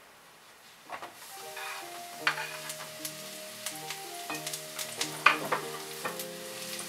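Sliced button mushrooms dropping into hot oil in a frying pan and starting to sizzle about a second in, with several sharp clacks against the pan, the loudest about five seconds in. Soft background music plays underneath.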